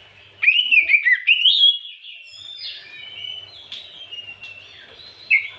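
Oriental magpie-robin singing: a loud burst of quick whistled notes sweeping up and down for over a second, then softer, varied whistles, and one more sharp note near the end.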